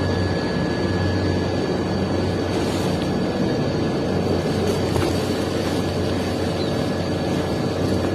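Steady engine drone with a strong low hum, running evenly without change.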